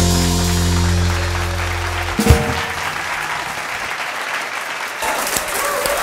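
A live rock band's final held chord rings out and is cut off by a closing hit on the drum kit about two seconds in, followed by the audience applauding.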